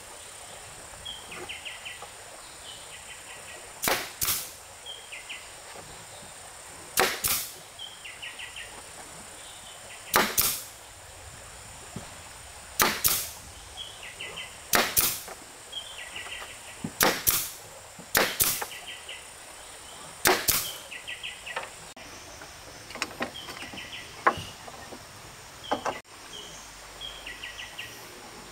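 Short, sharp noisy strokes, mostly in pairs, every two to three seconds, over a steady high insect drone and small repeated chirps.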